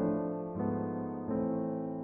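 Background music: slow solo piano, a new chord struck about every three-quarters of a second and left to ring and fade.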